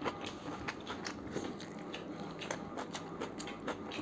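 Close-miked eating of mutton biryani by hand: chewing and biting, heard as many irregular sharp clicks.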